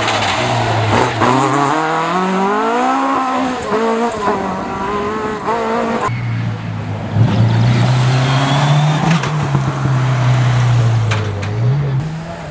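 Rally car engines at full throttle, the pitch climbing and dropping in steps through gear changes as a car passes. About six seconds in the sound cuts abruptly to another car holding a steady high engine note that rises again near the end.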